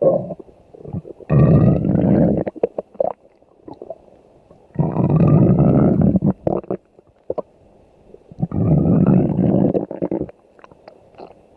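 Cartoon stomach-growl sound effect: three growls, each about two seconds long, a low gurgling rumble with a faint rising whine on top, separated by short gaps.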